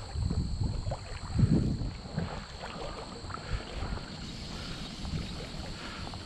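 Low, uneven rumble of wind and handling noise on the microphone, swelling briefly about one and a half seconds in, over a faint steady high-pitched insect trill.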